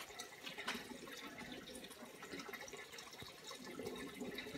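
Faint steady running of water from a supply pipe pouring into an underground water tank that is already full.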